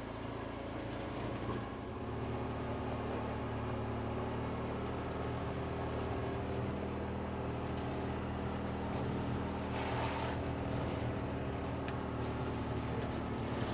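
Side-by-side UTV engine running steadily at low speed while it tows a portable hut, picking up slightly about two seconds in. A short rushing sound comes about ten seconds in.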